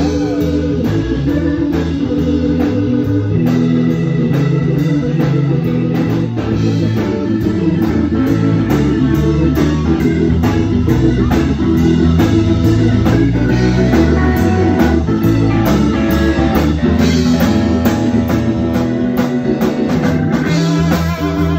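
A live blues band playing with electric guitar, bass and organ over a steady beat.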